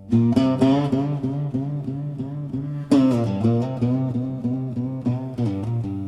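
Blues guitar playing a slow intro phrase, picked notes with string bends over a bass line, a new phrase starting about three seconds in.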